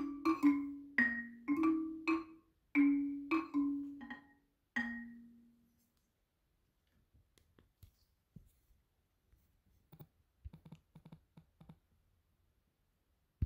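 Background music: a melody of struck mallet-percussion notes with a marimba-like tone, each note ringing out and fading, ending about five seconds in. After that, near silence with a few faint ticks.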